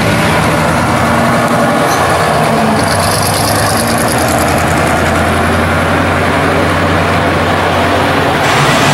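Engine and exhaust of a customised mid-1950s Chevrolet two-door sedan running as the car pulls out and drives past. The deep engine note strengthens past the middle as it goes by.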